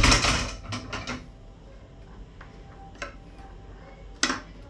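Toy fishing line and its magnet lure dropped onto the floor: a sharp knock and about a second of clatter, then a few scattered light clicks, one near the end.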